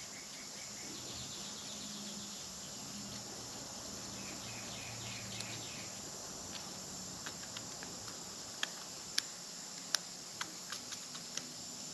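A few light, sharp clicks of a small flat-blade screwdriver working the tiny screws of a motorcycle brake light switch, scattered through the second half. Under them, quiet room hiss with faint, repeated high chirping.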